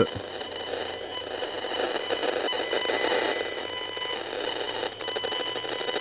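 Safe and Sound Pro II broadband RF meter's audio output: a continuous crackling hiss with several steady high whistling tones, the sound of the microwave signals it is picking up, which the owner puts down to a distant cell tower. It shifts a little as the meter is moved around.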